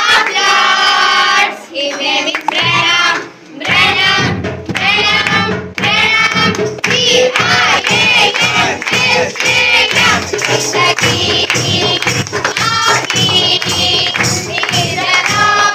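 A congregation singing a worship song with musical accompaniment. From about four seconds in, a steady percussive beat runs under the singing.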